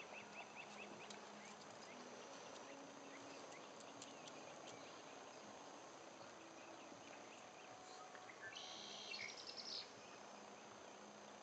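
Faint outdoor ambience: a steady high insect drone with scattered quick bird chirps, and a brief louder burst of rapid high clicks about nine seconds in.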